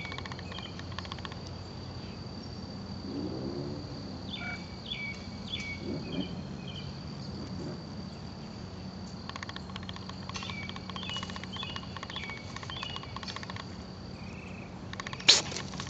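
Bursts of fast ticking from a hummingbird clearwing moth (Hemaris thysbe) as it hovers and pushes its proboscis into pink dianthus flowers, over a steady high-pitched insect trill. One sharp click near the end is the loudest sound.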